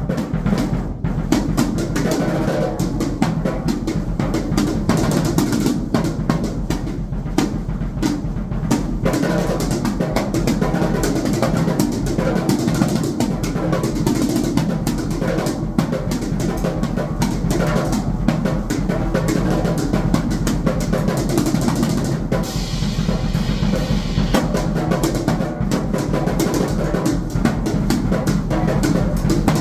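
Drum kit played in a dense, nonstop stream of hits with no pauses, snare and bass drum together.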